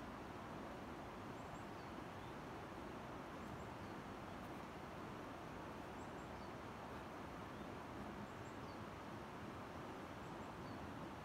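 Steady outdoor background hiss, with a few faint, short, high bird chirps scattered through it.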